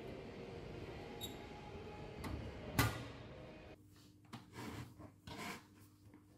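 A worn, loose InPost parcel locker door being pulled and rattled, with a loud metal clack about three seconds in. Then a few short strokes of a pen scratching on notebook paper in a quieter room.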